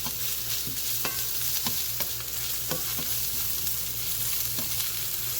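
Sliced beef wieners sizzling in hot oil in a frying pan as they are stir-fried, with a utensil scraping and knocking against the pan now and then.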